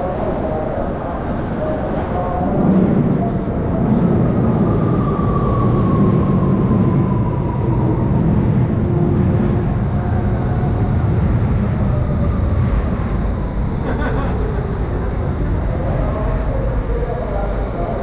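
Electric commuter train running on the elevated tracks: a low rumble that builds a few seconds in, with a motor whine falling slowly in pitch as the train slows.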